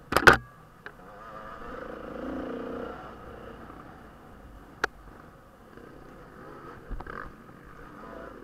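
Off-road motorcycle engine running under load on a rough dirt track, swelling louder about two to three seconds in and then easing. A loud clattering knock comes just after the start, a sharp click near five seconds and a smaller knock about seven seconds in.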